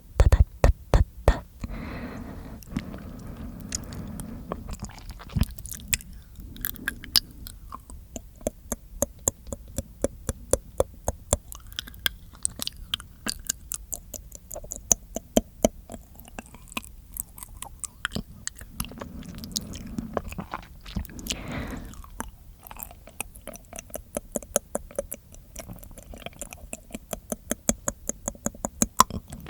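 Close-miked mouth sounds: a rapid, irregular run of wet clicks and smacks of the tongue and lips, with a couple of softer breathy stretches.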